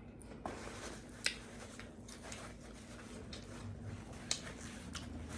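Quiet close-miked chewing of a taco, with a few sharp wet mouth clicks and smacks.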